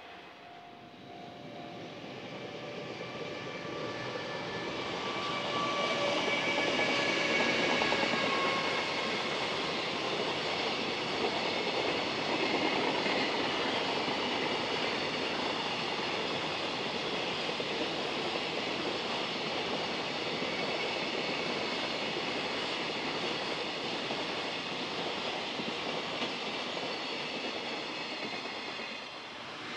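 Container freight train running past on the rails. The sound grows louder over the first several seconds, with a few high whining tones that fall slightly in pitch. It then settles into a steady rush of wagons rolling by, and drops away near the end.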